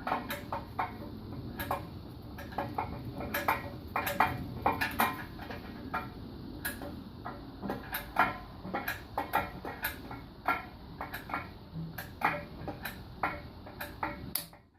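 Irregular metallic clicks and clinks as a Toyota 1ZZ-FE engine is turned over by hand with its timing chain fitted, tool and chain clicking against metal. The clicking stops just before the end.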